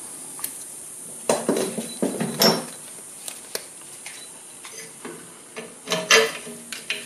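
Small metal and plastic wheel bushings clicking and clinking as one is pressed into a grinding wheel's centre hole, and the wheel is handled onto a bench grinder's arbor. The clicks and knocks are scattered, busiest around a second and a half in and again near the end.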